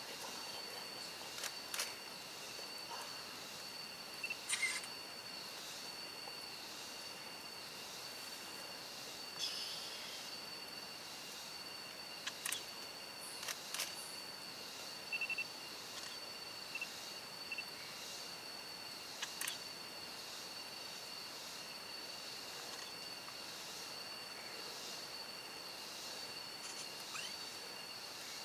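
Tropical forest insects calling: two steady high-pitched trills at different pitches that never let up, with a few sharp clicks now and then.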